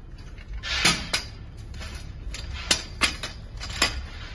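Metal knocks and clinks from steel prop parts being handled and fitted together: about five sharp, separate strikes of steel on steel, the first two close together.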